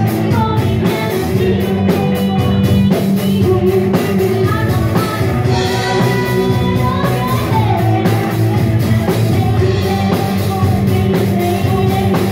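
Live rock band playing a song: a woman singing into a microphone over electric guitars and a drum kit.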